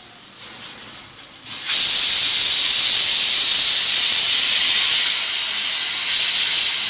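A loud, steady, high hiss that starts suddenly about a second and a half in.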